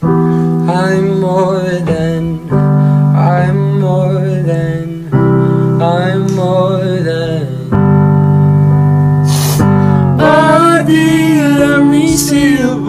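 Music: a song with a voice singing over held keyboard chords that change every two to three seconds.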